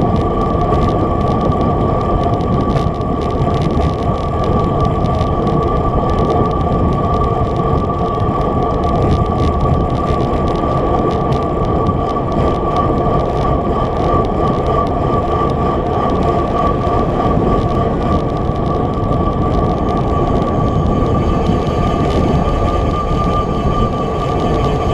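Wind rushing over a bike-mounted action camera's microphone while riding at about 22 mph, with road and tyre rumble underneath and a steady, high-pitched whistle.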